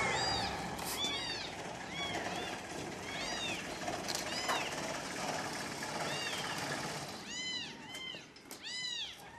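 Newborn kittens, about three days old with eyes not yet open, mewing over and over: many short, thin, high-pitched cries, each rising then falling in pitch, several voices overlapping and crowding closer together near the end.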